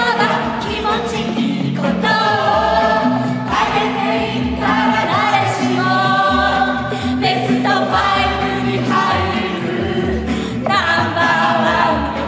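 A group of men and women singing a song together over instrumental accompaniment, in phrases of long held notes.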